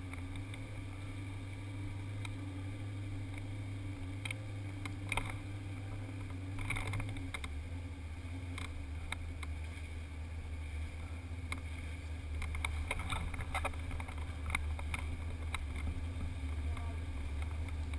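Flat-bottom drag boat's engine idling with a steady low rumble that settles slightly lower in pitch about seven seconds in, with scattered faint clicks.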